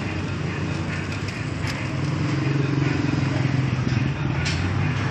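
A vehicle engine running nearby as a low, steady hum that grows louder about two seconds in, with a few light clicks.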